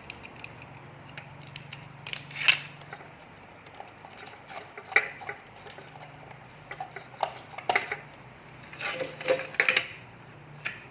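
Small hard clicks and metallic clinks in a few clusters, from handling a soldering iron, its plug and parts on a workbench, over a steady low hum.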